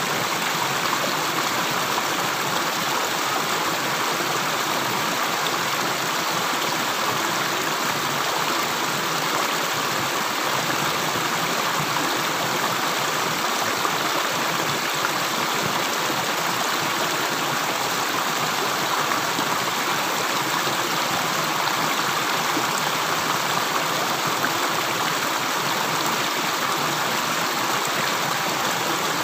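Steady flowing water: an even, continuous rush with no separate drips standing out.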